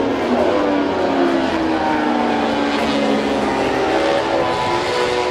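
Engines of two 1000cc four-stroke MotoGP race bikes, led by a Repsol Honda, running past at speed. The engine note falls, then climbs again from about halfway through.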